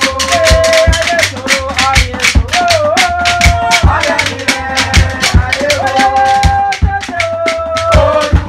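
Music with a quick, even rattle beat, deep drum thumps and a held melody whose notes step up and down.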